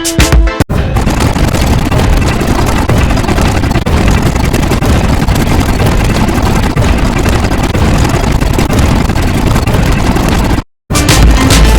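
A loud, steady, dense rumbling noise with a heavy low end, engine-like, which starts just after a short break and cuts off abruptly near the end.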